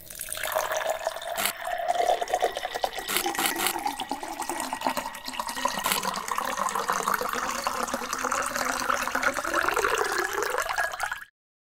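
Steady rushing, water-like noise, like water running or pouring, that cuts off suddenly near the end.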